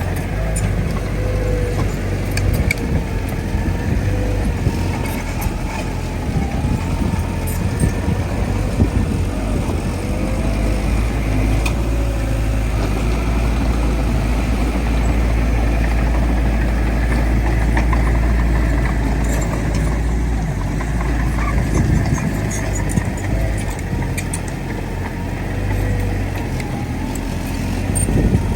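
Bulldozer's diesel engine running steadily: a deep continuous rumble with a whine that wavers up and down in pitch, and scattered light clicks.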